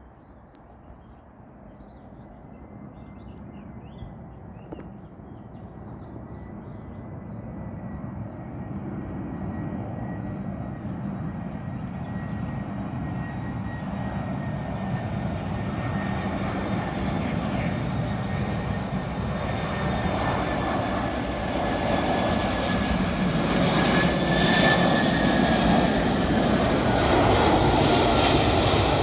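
Boeing 747's four jet engines on landing approach, growing steadily louder as the jet draws near, with a thin high whine that slowly falls in pitch.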